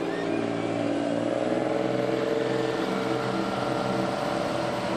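Boat engine running steadily, its pitch rising a little about a second or two in as the launch picks up speed.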